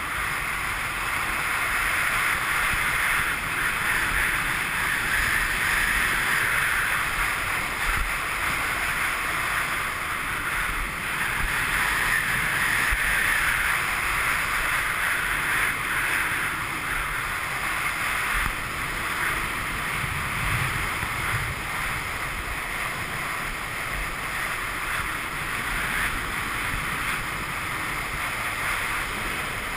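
Skis carving down hard, frozen corduroy: a steady hiss and scrape of the edges on firm snow that swells and eases every few seconds. Wind rumbles on the action camera's microphone underneath.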